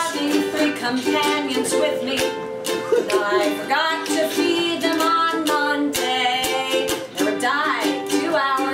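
Ukulele strumming chords as accompaniment to a woman singing.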